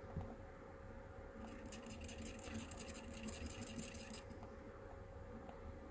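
Faint, rapid, even ticking, about seven a second for roughly three seconds midway, over a faint steady hum. It is ceramic tweezers strumming and pinging freshly wrapped vape coils while they are pulse-fired at 70 watts, to break them in and bring out hot spots.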